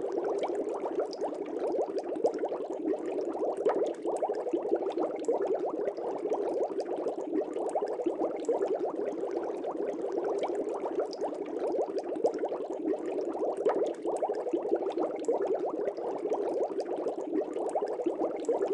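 Water bubbling steadily, a dense stream of small pops and gurgles, as from aquarium air bubbles.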